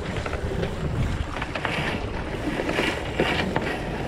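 Wind buffeting the microphone with water rushing and splashing along the hull of an Impulse 26 sailboat under way, with louder splashes about halfway through and again near the end.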